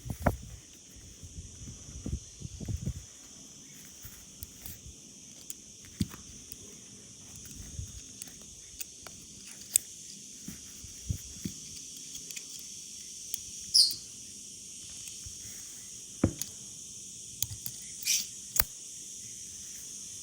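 Steady high-pitched insect chorus, with scattered sharp clicks and low thumps, the heaviest near the start and again about two-thirds of the way in.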